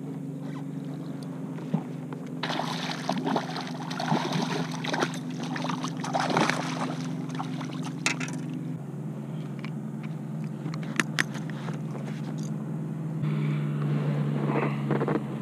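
Water splashing and sloshing as a fish is netted beside a kayak, in bursts for several seconds starting a couple of seconds in, then a few sharp clicks near the end, over a steady low hum.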